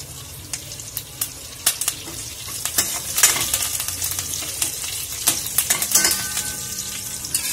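Tadka sizzling and crackling: curry leaves, dried red chillies and whole spices spluttering in hot oil in a stainless steel kadhai, stirred with a steel ladle. The sizzle grows louder about three seconds in as the stirring starts, with many small pops and clicks throughout.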